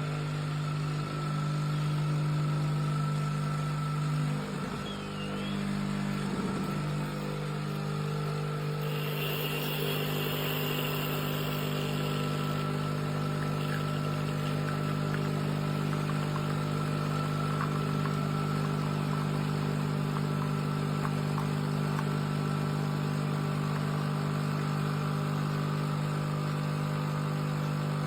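Philips Baristina espresso machine running with a steady mechanical hum. A faint hiss joins it briefly about nine seconds in.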